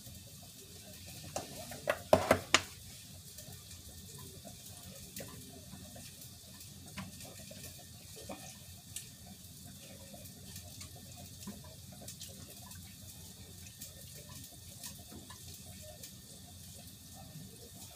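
Kitchen tap running steadily into a sink, with a quick cluster of loud clatters about two seconds in and scattered light clicks after.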